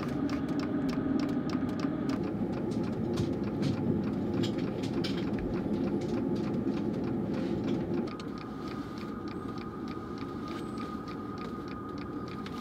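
A window-mounted vehicle heater running, its fan a steady noise under quick regular ticking. About eight seconds in the sound drops in level and a steady high whine comes in.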